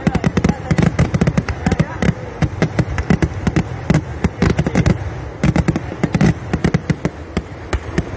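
A vedikkettu fireworks barrage: a rapid, unbroken run of firecracker bangs at ground level, several loud blasts every second.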